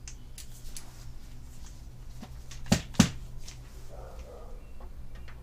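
Hand tools clicking and knocking against the metal of the car's front end as the condenser's bottom screws are worked on, with two sharp knocks close together a little under three seconds in, over a steady low hum.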